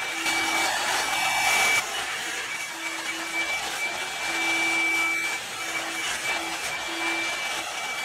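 Revlon One-Step hot-air brush dryer running: a steady rush of air with a thin motor whine that comes and goes, blowing through hair as it is brushed. It is a little louder for the first couple of seconds.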